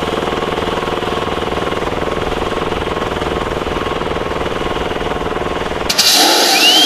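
Small engine of a munitions lift truck running steadily as it drives along, with a fast, even chugging. About six seconds in it breaks off into a different sound with a short rising whistle.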